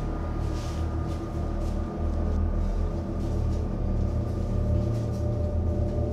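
Low, steady droning suspense score, a deep rumble under sustained held tones, with no beat.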